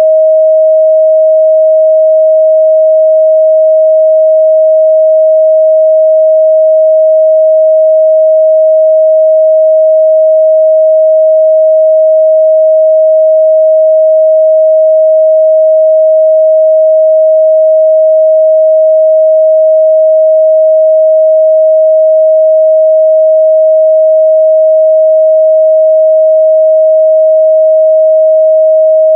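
A steady 631 Hz pure sine-wave test tone, one unchanging pitch at constant loudness, used for checking the midrange response of speakers and headphones.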